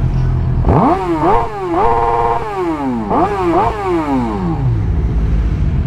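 Suzuki GSX-R sportbike's inline-four engine revved from idle in two sets of quick throttle blips. The first set comes about a second in and holds high briefly; the second comes about three seconds in, and the revs then fall back to a steady idle.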